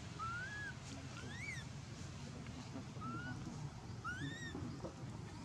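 Long-tailed macaque coo calls: four short, whistle-like calls, each rising in pitch and some arching back down, over a steady low background hum of outdoor noise.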